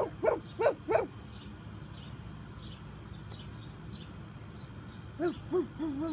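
A dog barking: four quick barks at the start, then after a pause several more near the end.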